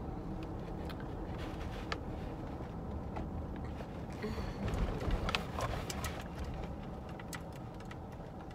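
Steady low rumble of a car's engine and tyres heard inside the moving car's cabin, with scattered small clicks and knocks. It swells somewhat louder around the middle before settling again.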